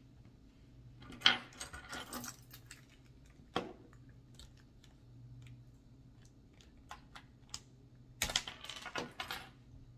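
Scattered light clicks and clatters of a small metal tool and small parts being handled while a wheel hex is pried off and its pin pushed out on an RC truck's rear axle. The clicks come in a busier cluster about a second in and another near the end, with a single sharp click in between.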